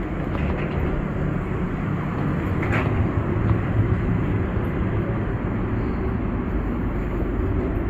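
Steady low machinery rumble inside an airport jet bridge, with a brief click about three seconds in.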